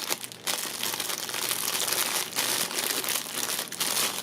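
Packaging crinkling and rustling in continuous, irregular crackles as it is handled, most likely the wrapping of a USB cable.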